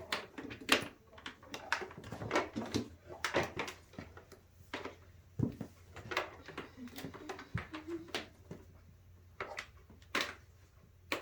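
Irregular clicks and knocks, sometimes several a second, from objects being handled, with a few faint voice sounds between them.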